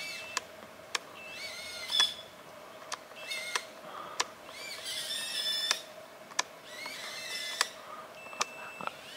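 Quiet outdoor ambience: birds chirping now and then over a steady faint hum, with sharp clicks at irregular intervals.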